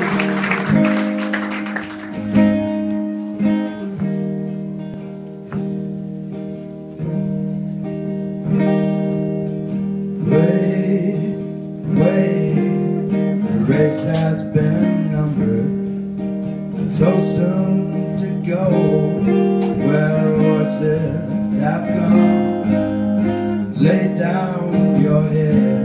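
Live guitar playing chords that are strummed and left to ring, with a new strum every second or so.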